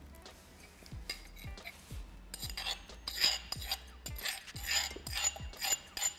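Metal spoon scraping chilli paste out of a stone mortar, a run of scraping strokes about two a second from a couple of seconds in. Background music with a steady beat plays underneath.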